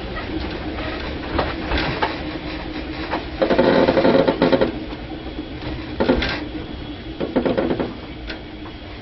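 Interior running noise of a Tobu 5050 series electric train riding on old 7800-series nose-suspended (tsurikake) drive: a steady motor-and-gear hum under clattering and rattling of the car and its wheels on the track. The clatter swells loudest about three and a half to four and a half seconds in, with shorter surges around six and seven and a half seconds, and eases off near the end.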